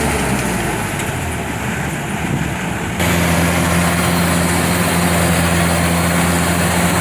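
Kubota DC-105X combine harvester's diesel engine running. About three seconds in, the sound switches abruptly from a quieter, uneven run to a steady, louder one with a clear low pitch.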